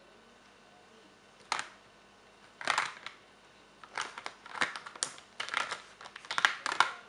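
Wax crayons clicking and clattering against each other and a clear plastic tub as a small child's hand rummages through them. Single clicks start about a second and a half in, and the rattling gets busier in the second half.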